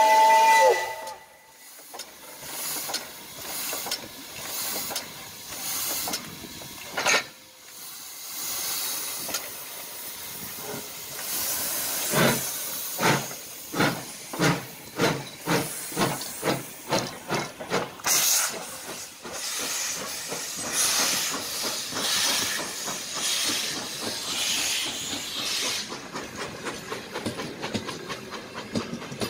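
Steam locomotive: a whistle chord that ends about a second in, then exhaust chuffs that quicken as the engine starts its train, with steam hissing. Near the end comes a faster clicking of the coach wheels over the rail joints as the coaches roll by.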